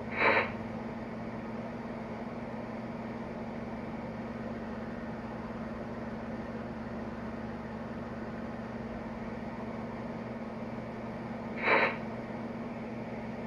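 A QSI QS-3000 model steam locomotive sound system playing its standing idle sounds through the engine's small speaker: a steady hum and hiss with a constant low tone. It is broken by two brief louder bursts, one right at the start and one near the end.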